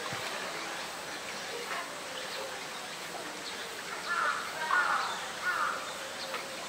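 Open-air ambience with faint distant voices, and three short calls in quick succession about four seconds in.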